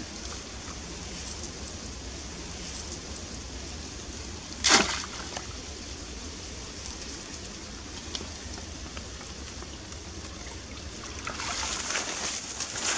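Water sloshing and trickling, with one sharp splash about five seconds in and louder sloshing near the end.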